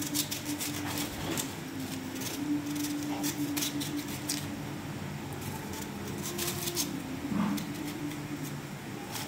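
Kitchen knife peeling the skin off a hand-held chayote squash: clusters of short, crisp cutting and scraping strokes, over a steady low hum.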